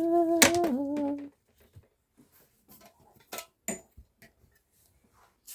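A woman singing one long held note on the word "enough", stopping about a second in. Faint scattered clicks and rustles follow.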